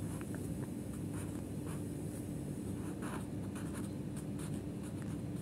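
Pen writing on paper: a run of short scratchy strokes, over a steady low hum.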